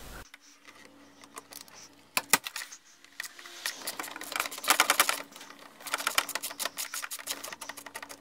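Ratchet clicking in quick runs as it turns a 10 mm socket on two extensions to undo the hood latch's bottom screw; a few single clicks come first, and the long runs of fast clicks start about four seconds in.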